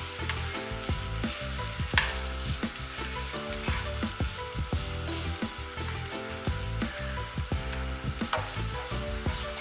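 Chopped onion sautéing in oil in a frying pan, sizzling steadily, with frequent clicks and scrapes of a utensil stirring it around the pan.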